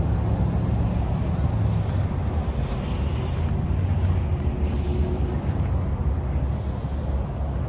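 A steady low rumble of outdoor background noise, with no distinct engine or voice.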